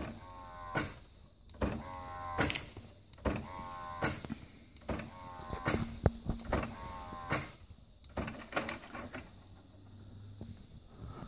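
HP OfficeJet Pro 8715 inkjet printer running its printhead recovery (deep cleaning) cycle. Its mechanism repeats a pattern of sharp clicks with a rising whine between them, about five times. Near the end it settles to a quieter low hum.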